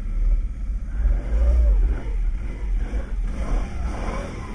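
Can-Am Renegade 800's V-twin engine being ridden over snow, revving up and easing off twice over a strong low rumble.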